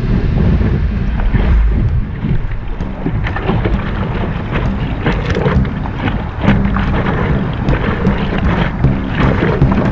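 Wind buffeting the microphone of an action camera mounted on the nose of a stand-up paddleboard, over water rushing and splashing around the board as it rides a wave, with paddle strokes slapping the water.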